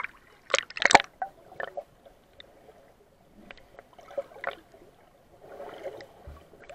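Sea water splashing over an action camera's waterproof housing as it goes under the surface, with two sharp splashes about a second in. After that come muffled underwater sloshing and small crackles of bubbles against the housing.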